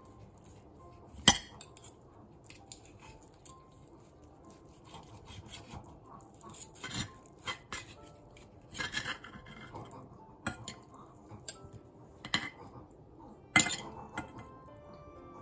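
Knife and fork clinking and scraping against a ceramic plate while cutting up pieces of cooked pork: scattered sharp clinks, the loudest about a second in.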